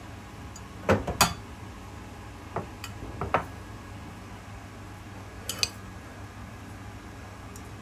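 Dishes and utensils being handled: a few short clinks and knocks, a pair about a second in, a few more around three seconds, and another pair near five and a half seconds, over a steady low hum.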